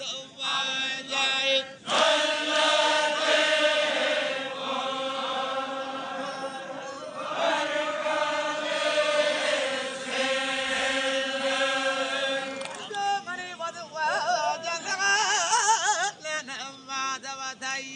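Men's voices chanting together in a Zikri chogan, long held phrases in unison. About thirteen seconds in the massed chant gives way to a wavering, ornamented vocal line.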